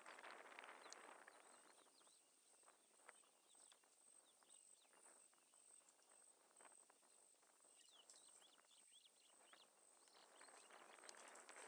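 Near silence: faint outdoor field ambience, with scattered soft clicks, a few short high chirps about eight seconds in, and a steady thin high tone.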